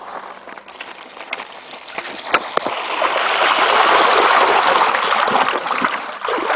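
A mountain bike riding into water: a rushing splash that builds to its loudest about four seconds in, with a few sharp knocks.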